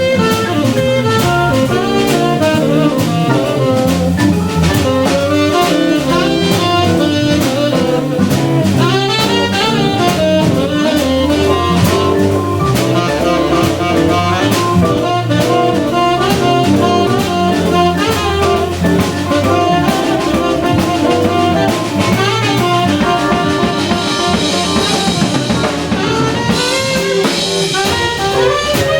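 Small jazz band playing live: tenor saxophone over organ, guitar and a drum kit keeping a steady beat.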